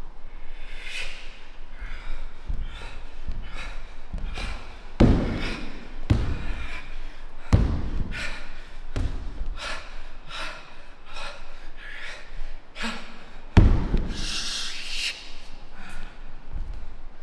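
Kung fu students performing a form together: repeated short, sharp, forceful exhalations with the techniques, punctuated by heavy thuds, the loudest about five seconds in, at seven and a half seconds and near fourteen seconds.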